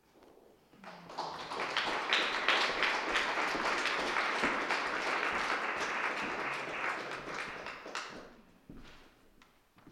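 Small audience applauding: many hands clapping, starting about a second in, holding steady, then dying away near the end.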